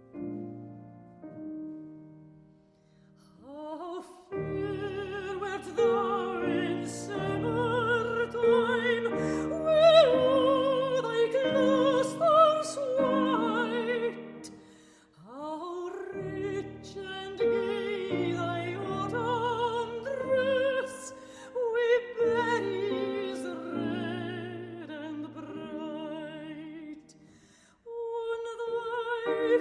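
Operatic singing with a wide vibrato over piano accompaniment. The piano plays alone at first and the voice comes in about four seconds in, singing two long phrases with a short break between them.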